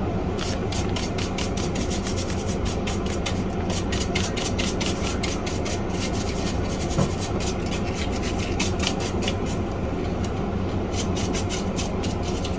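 Small keyboard-cleaning brush scrubbing dust off a floppy drive's power supply board, its bristles rasping in quick, repeated strokes.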